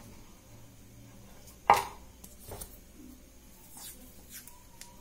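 Hands handling a roll of electrical tape and a small wired circuit board: a sharp snap about a second and a half in, a fainter one a second later, then light scraping and rustling.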